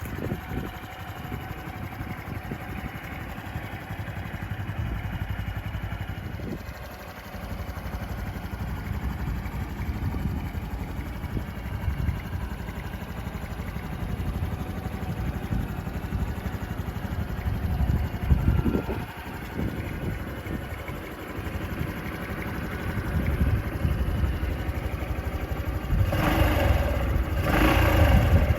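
Honda Cross Cub's 110cc single-cylinder engine running, getting louder near the end.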